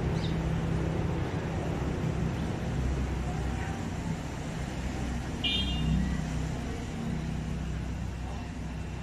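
A steady low mechanical hum, with a short high-pitched chirp about five and a half seconds in.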